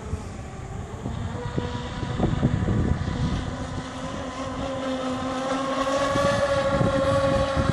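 Radio-controlled fast-electric (FE) race boat running flat out across the water, its electric motor giving a steady whine that grows louder and rises slightly in pitch as it comes close, about two-thirds of the way through. Wind rumbles on the microphone underneath.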